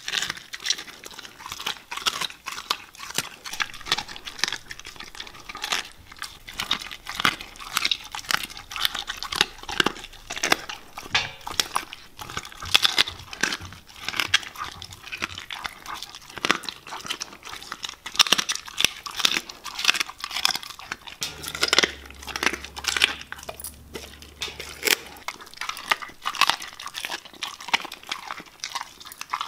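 Siberian husky eating and licking from a stainless steel bowl of water: a fast, irregular run of wet chewing, lapping and crunching clicks.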